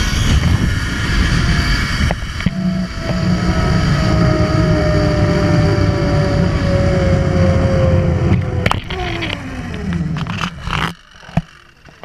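Zip line trolley pulleys running along the steel cable at speed: a loud rushing whir with a whine that falls steadily in pitch as the rider slows toward the end of the line. A few clacks follow, and the noise stops abruptly about eleven seconds in as the trolley comes to a halt.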